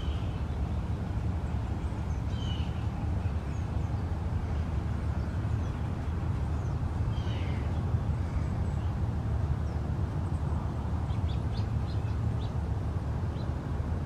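A few faint, short chirps of small songbirds, with a quick run of high ticks about eleven seconds in, over a steady low rumble.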